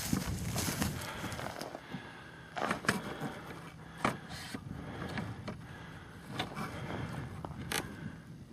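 Footsteps and rustling in dry grass close to the microphone, with scattered crunches and knocks.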